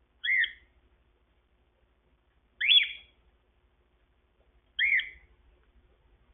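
Gray cockatiel giving three short chirping calls about two seconds apart, each a quick rising whistle.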